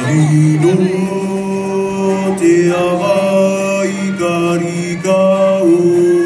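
Group of voices singing a Cook Islands chant in long held notes, several pitches sounding together and moving to a new note every second or so, with short breaks between phrases.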